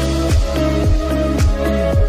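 Background music with a steady electronic beat: deep thumps about twice a second under held tones.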